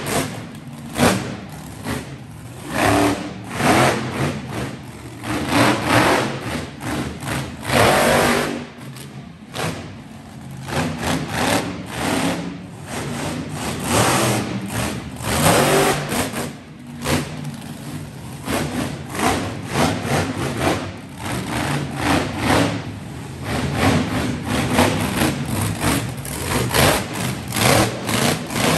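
Monster truck engine revving hard in repeated bursts, surging and dropping every second or two, as the truck drives over a row of crushed cars.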